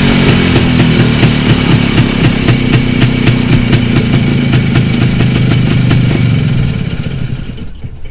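ČZ 175/502 Čezeta scooter's single-cylinder two-stroke engine idling with an even beat after settling down from a rev, then switched off and dying away near the end.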